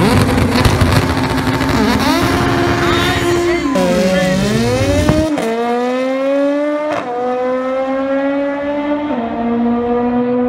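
Naturally aspirated Honda drag car launching hard and accelerating down the strip. Its high-revving engine climbs in pitch and drops back at each gear change, several times over.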